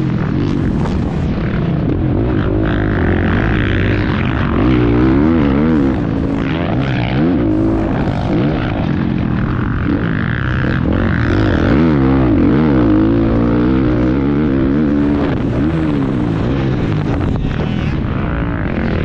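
A 450cc four-stroke motocross bike engine, ridden hard around a dirt track. The revs keep rising and falling through the whole stretch as the rider accelerates and shuts off for corners.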